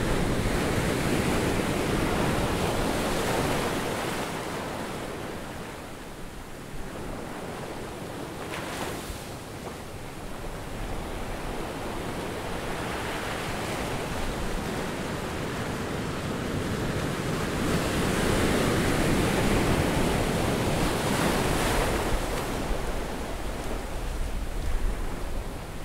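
Ocean surf on a beach: a steady rush of waves that swells and eases slowly over several seconds.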